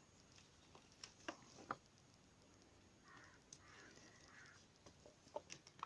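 Near silence, broken by a few faint scattered clicks and taps.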